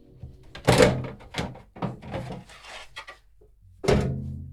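Sheet-metal outer casing of an LG microwave being lifted and slid off its chassis: metal scraping and knocking, with louder clunks about a second in and again near the end.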